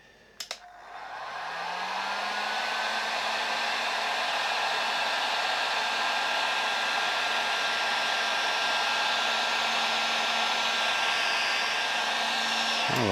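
Electric heat gun switched on with a click, its fan motor spinning up to a steady pitch and blowing hot air to shrink heat-shrink tubing over a crimped wire joint. It runs steadily, then is switched off and winds down at the very end.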